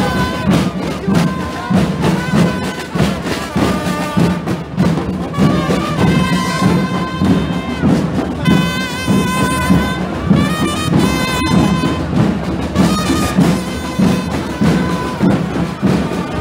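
Street band of trumpets and drums playing a tune: held trumpet notes over a steady drumbeat.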